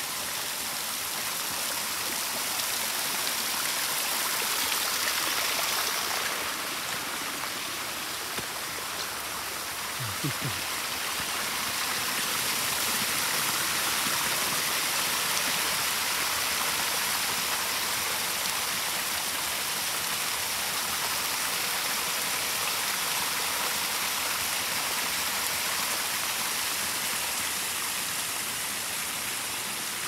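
Small waterfall: mineral spring water splashing steadily down stepped terraces into a shallow pool, an even rushing hiss.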